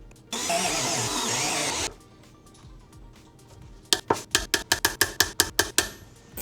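Background music, with a loud burst of whirring noise lasting about a second and a half near the start, then a quick run of about a dozen sharp clicks, roughly six a second, in the second half.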